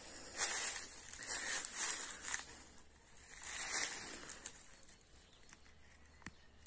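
Dry fallen leaves crunching and rustling underfoot: four crunchy steps about a second apart, then quieter rustling.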